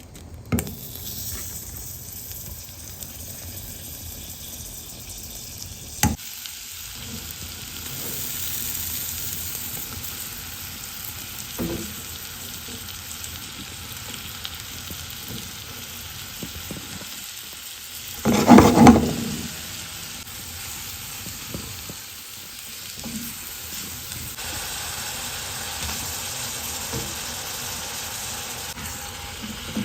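Food sizzling steadily in a cooking pot, with a few sharp utensil knocks against the pot and one louder clatter about two-thirds of the way through.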